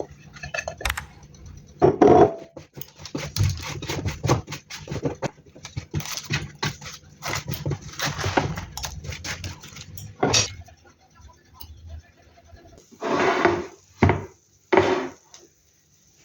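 Kitchen handling sounds: a run of small knocks, clicks and clatter of utensils and cookware, then a few short noisy scraping bursts near the end.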